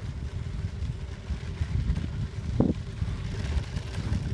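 Low, steady rumble of wind buffeting the microphone and tyres rolling on a gravel trail while riding a bicycle, with one brief sharper sound about two-thirds of the way through.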